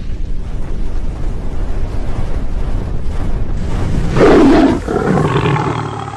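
Loud, rumbling roar-like sound effect that swells up, is loudest about four seconds in, then begins to fade away.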